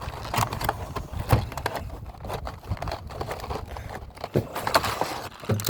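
Plastic toy packaging being handled: scattered clicks, rustles and crinkles over wind rumbling on the microphone.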